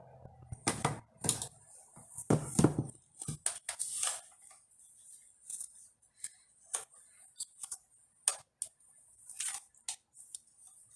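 Irregular small clicks and light knocks from handling a resin ball-jointed doll, its hard resin parts and joints tapping and shifting, with a few louder knocks in the first three seconds.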